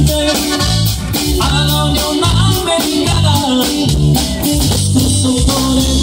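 A corrido played live by a band on bass guitar, electric guitar and drum kit, with the bass stepping between low notes in a bouncing two-beat rhythm under a melody line.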